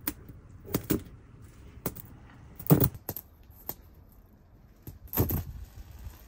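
Footsteps crunching in deep snow: a handful of uneven crunches, the sharpest about three seconds in and a longer one near the end.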